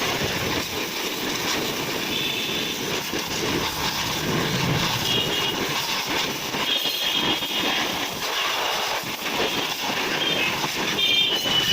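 Pressure washer running and spraying water, a steady rushing hiss with a high whine that comes and goes several times.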